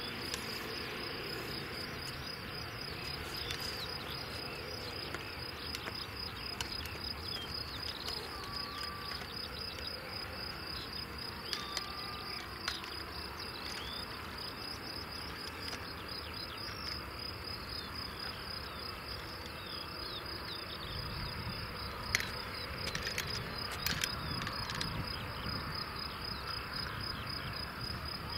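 Crickets chirping in a continuous, rapidly pulsing high trill. Beneath it is a low rumble from the Boeing 737-700's jet engines as the airliner taxis, growing a little stronger in the last several seconds.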